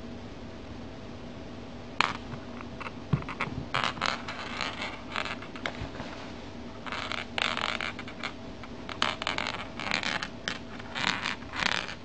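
Irregular bursts of rustling and scraping, starting about two seconds in: a cat's paw swatting at a toy, with the toy and the jacket fabric brushing together.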